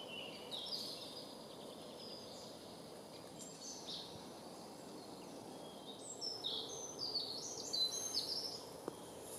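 Small songbirds singing in woodland over a steady outdoor background hiss. Short high notes come through now and then, with a quicker run of phrases about six seconds in.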